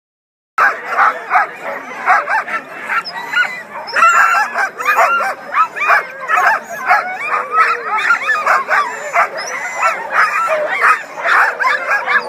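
Many sled dogs barking and yipping at once in a dense, overlapping chorus, starting abruptly about half a second in: excited dogs being readied to run.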